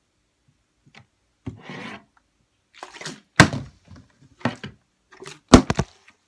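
A large plastic sports-drink bottle, partly filled with liquid, being handled on a wooden tabletop: a short scrape, then several sharp knocks, the loudest about three and a half and five and a half seconds in.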